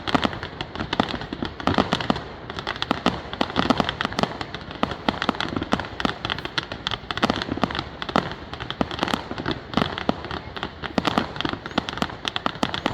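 Fireworks grand finale: a dense, continuous barrage of bangs and crackling pops fired in rapid succession, with no let-up.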